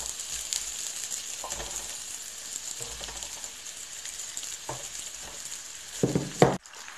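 Onions and potato slices sizzling in hot oil in a stainless steel skillet as the potatoes are scraped in from a bowl with a wooden spatula, with a few light scrapes and knocks. A louder clatter comes about six seconds in and cuts off abruptly.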